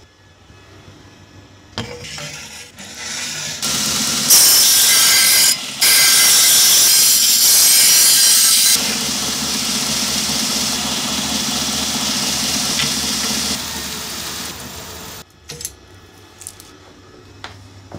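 Belt grinder spinning up, then its abrasive belt grinding the steel of a Damascus Chinese cleaver held in a jig: a loud, even hiss for about four seconds, broken once briefly. It goes on softer and steady for several more seconds, then winds down and stops; small clicks of the jig being handled follow.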